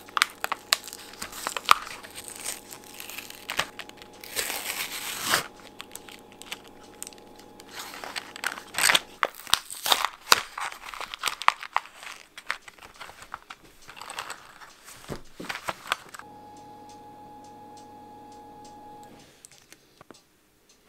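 Clear plastic wrapper being crinkled, crumpled and torn open by hand, in a dense run of irregular crackles that stops about 16 s in, leaving a low steady hum for a few seconds.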